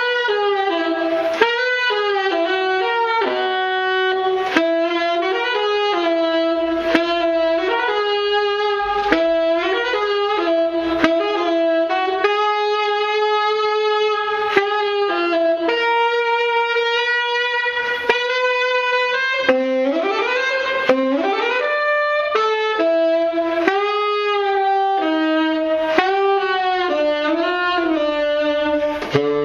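Solo tenor saxophone improvising, with long held notes and short repeated phrases and quick rising runs about twenty seconds in. A short sharp click sounds every two to three seconds.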